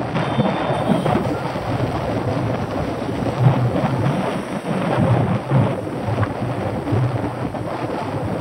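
Wind buffeting the microphone of a bicycle-mounted camera while riding, a steady rushing noise with gusty low rumbles.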